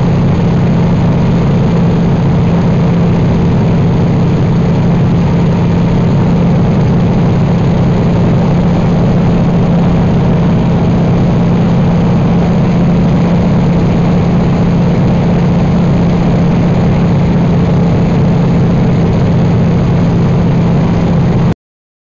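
Cockpit sound of an AT-6 Texan in flight: its Pratt & Whitney R-1340 nine-cylinder radial engine and propeller making a loud, steady drone with a strong low hum, under rushing air. It cuts off suddenly near the end.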